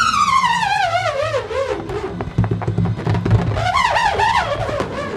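Small metal hex nut spinning inside an inflated rubber balloon, giving a wavering, buzzing whine. The pitch falls as the nut slows, climbs again when the balloon is swirled about four seconds in, then falls again, with light clicks of the nut rattling against the rubber.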